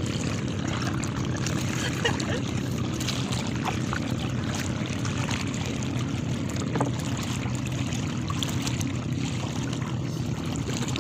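Water splashing and trickling, with scattered small splashes, over a steady low rumble.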